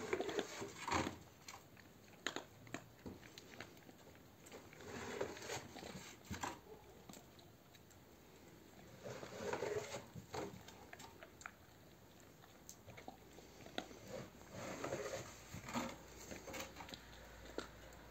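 Tornjak dog chewing a raw bone, with irregular bouts of crunching and cracking.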